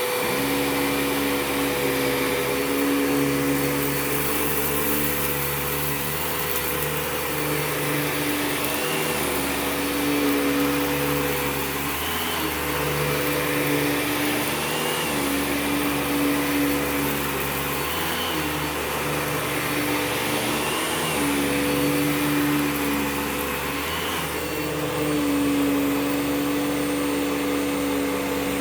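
Eureka TheBoss 4D upright vacuum cleaner running on carpet: a steady motor whine, with its lower tones shifting about every three seconds as the load on it changes.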